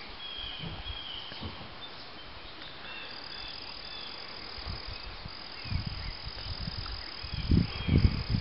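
Outdoor ambience: a steady, high-pitched insect trill that comes in about three seconds in, with faint short chirps. A few low thumps come near the end.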